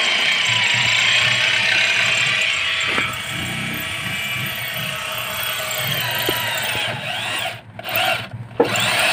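A handheld power tool, drill-type, running steadily with a whirring sound. Near the end it stops and restarts twice in quick succession.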